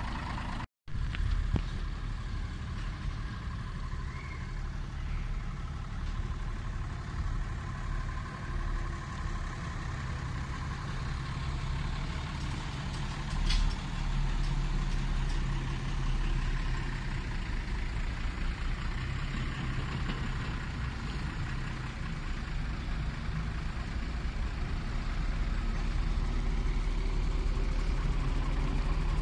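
Bus engine running steadily with a low hum, growing a little louder near the end, with one short sharp noise about halfway through.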